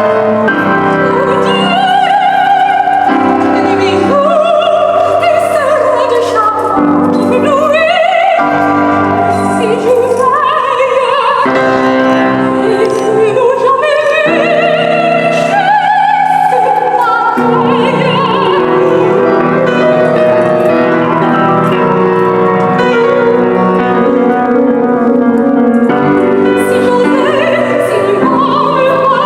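Soprano singing an opera aria with wide vibrato, with piano accompaniment.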